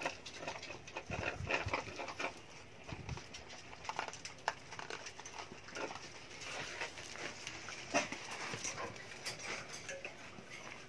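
Several small dogs moving and jostling about at a wire crate: scattered clicks, scuffs and rustling of paws and bodies.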